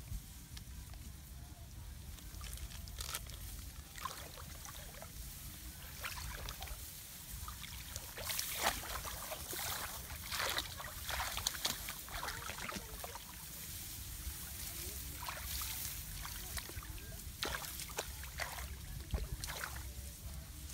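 Muddy water sloshing and rice stalks rustling as people wade and crouch in a flooded paddy, in irregular bursts that are busiest in the middle and latter part, over a steady low rumble.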